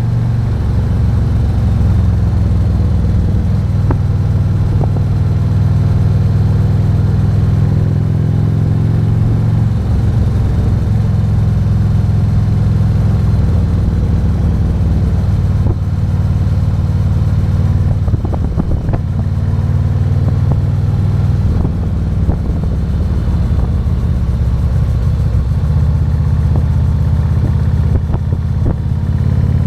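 Harley-Davidson Road King's 117-cubic-inch V-twin running while riding, its exhaust note steady and deep, stepping up and down in pitch a few times with throttle changes.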